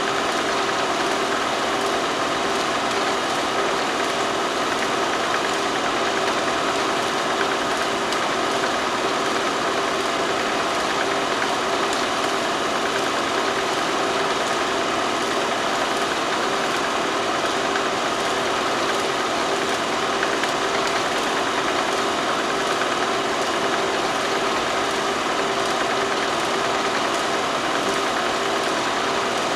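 Steady mechanical hum with several held tones over an even hiss, unchanging throughout. It is background noise on the soundtrack of silent footage, not sound from the filmed scene.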